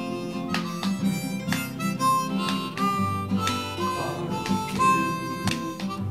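Background music: a harmonica playing held and bending notes over a steadily strummed guitar.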